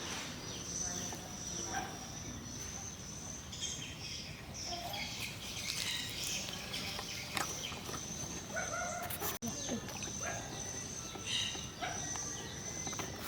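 Countryside ambience: scattered bird chirps and calls over a steady high-pitched hum.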